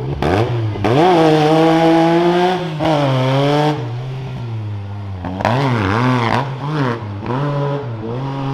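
Side-by-side UTV engine revving hard and easing off several times on a dirt course, the pitch climbing and dropping, with a quick run of short throttle blips a little past the middle.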